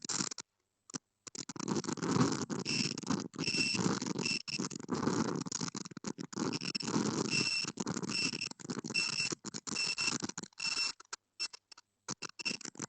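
A high electronic beep repeating about every half second, over a broad rushing noise that drops out briefly in places.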